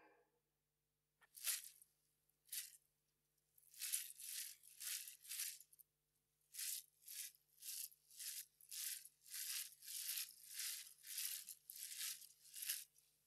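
Quiet rustling and crunching of dry fallen leaves in short, uneven swishes, one or two a second, with pauses early on and about halfway through.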